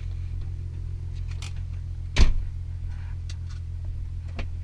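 Turbocharged VW Golf Mk4 R32's VR6 engine idling steadily, heard from inside the cabin, with the passenger door slammed shut about two seconds in and a few small clicks around it.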